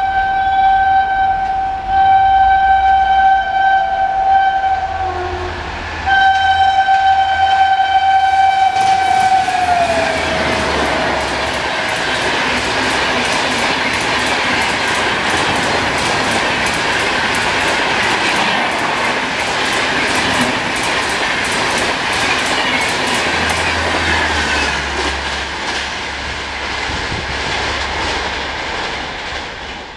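A WAP-7 electric locomotive hauling the Rajdhani Express sounds its horn in two long blasts as it approaches. The second blast drops in pitch as the locomotive passes at speed. Then the coaches rush by with a rapid clickety-clack of wheels over rail joints, fading near the end.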